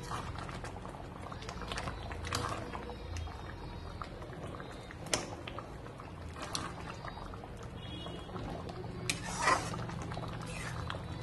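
Curry simmering and bubbling in a steel kadai while a spatula stirs it, with scraping and a few sharp clinks of the spatula against the pan, the loudest about nine seconds in, over a low steady hum.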